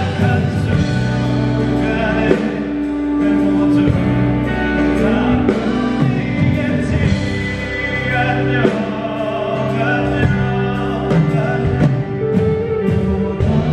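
Live performance of a song: a male singer singing with instrumental band accompaniment and percussion.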